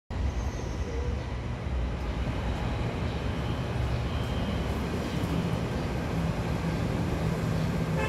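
Steady low rumble of outdoor urban background noise, heaviest in the bass, with a faint low hum joining about five seconds in.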